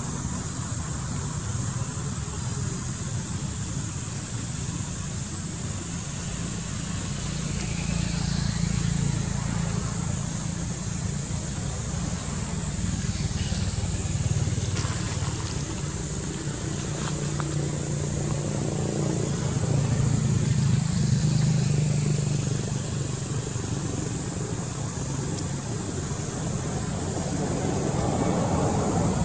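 Steady low outdoor background rumble that swells and fades slowly a couple of times.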